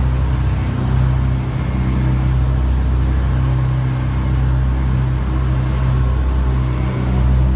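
Jet boat engine running steadily while underway, a low drone with an even hiss of rushing water and air over it.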